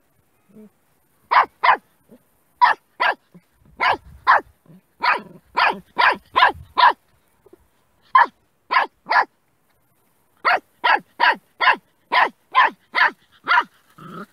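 Puppy barking at a snake in short, sharp yaps. It starts about a second in and gives about two dozen barks in quick runs of two to five, with brief pauses between the runs.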